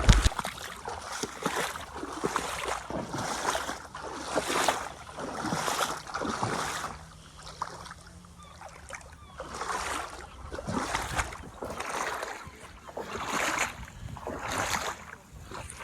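Water splashing and sloshing in a repeated rhythm, about one splash a second, with a quieter lull about halfway through.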